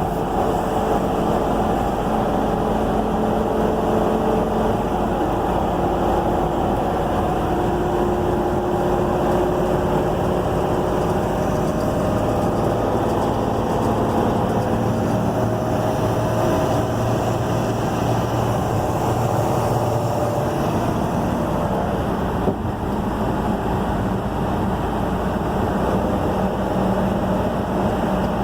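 Ford 6.8-litre V10 Triton engine running in gear under load, with a ticking noise that appears only around 2200 RPM under load, clearest about ten seconds in. The cause of the tick is undiagnosed.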